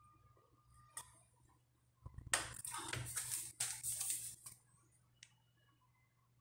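Paper rustling as a notebook is handled, in two stretches of about a second each starting about two seconds in, with a faint click about a second in.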